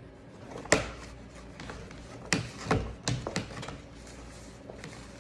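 A handful of sharp clicks and light knocks from objects being handled, the loudest about a second in, the rest bunched between two and three and a half seconds.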